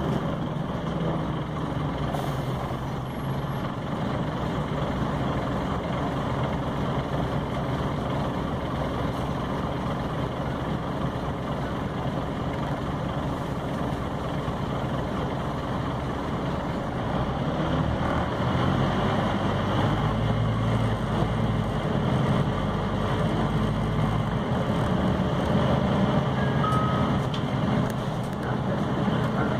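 A Scania CN270UB OmniCity city bus heard from on board while it drives. Its diesel engine drones with road and body noise, and the engine's low rumble grows heavier about two-thirds of the way through.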